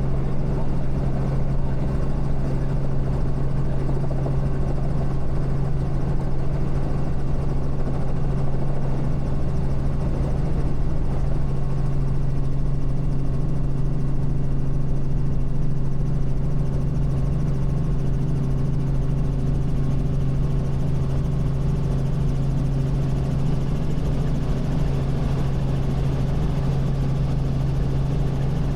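Robinson R44 Raven I helicopter running steadily during takeoff: a constant rotor and engine drone with a strong steady low hum.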